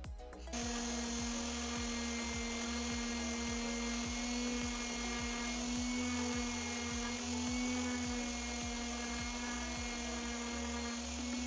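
Electric orbital sander running at a steady hum, starting about half a second in, as the end grain of a turned wooden goblet's foot is pressed against its spinning pad. Background music with a steady beat plays underneath.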